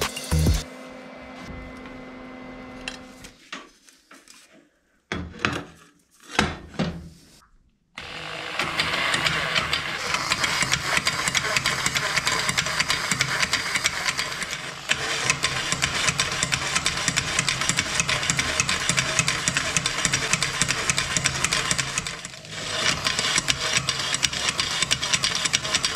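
Homemade spray-can shaking mechanism starting up about eight seconds in and running with a steady, fast rattle, dipping briefly near the end. A few knocks and clicks come before it starts.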